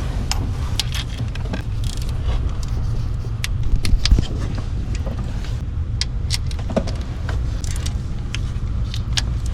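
Torque wrench ratcheting as it tightens the radiator fan hub's bolts to 10 newton meters: an irregular run of sharp metallic clicks over a steady low rumble.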